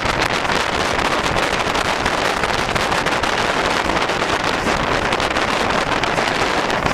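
Ivatt steam locomotive running along the line, heard from its cab, under a steady loud rush of wind buffeting the microphone.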